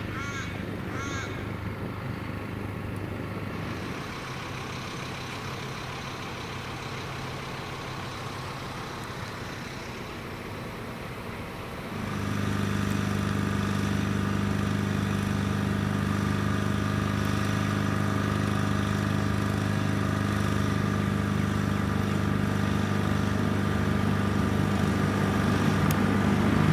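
Diesel train engine running steadily with a low hum, which gets louder about twelve seconds in. A few short bird chirps come in the first second or two.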